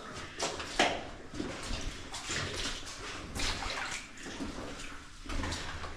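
Water splashing and sloshing in irregular bursts, with scattered knocks and rustles.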